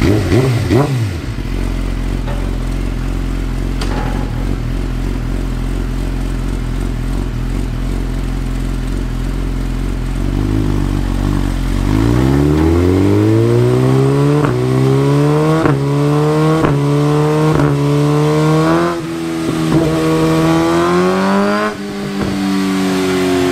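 2017 Suzuki GSX-R 1000's inline-four engine with an Akrapovič full exhaust system, idling steadily on a motorcycle dyno. About ten seconds in it revs up with a steadily rising pitch, broken by short breaks about once a second, dips briefly twice and then holds a higher steady note near the end. This exhaust is not quite as loud as the Alien Head system, largely because of the muffler's length.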